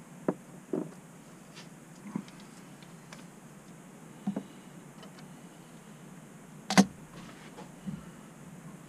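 Scattered light clicks and taps of small glass vials, a plastic weigh boat and a digital pocket scale being handled on a metal bench while placer gold is weighed out. There are about six sharp taps, the loudest about seven seconds in.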